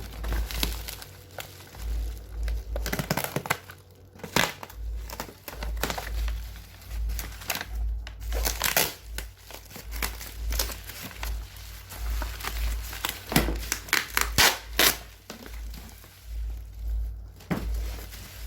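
Plastic parcel wrapping crinkling and tearing as it is pulled open by hand, in irregular bursts of crackling rustles.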